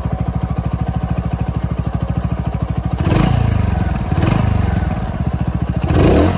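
Mutt GT-SS 250's single-cylinder engine idling through its exhaust with an even, throaty growl, then revved in three quick throttle blips from about three seconds in.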